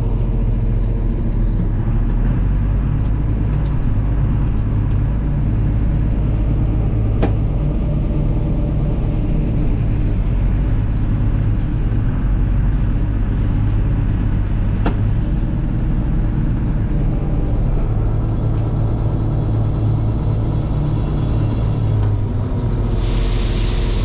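Combine harvester running with a steady low rumble, with two faint ticks along the way and a hiss coming in near the end.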